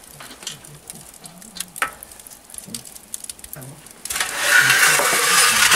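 Faint taps and clicks of an iron hook working at a steel socca pan in a wood-fired oven. About four seconds in, a loud, steady scraping noise starts as the pan is pulled out across the oven floor by its ring.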